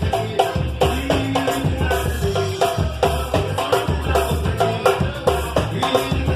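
Batuque: a live Brazilian percussion jam, drums and hand percussion playing together in a steady, driving beat.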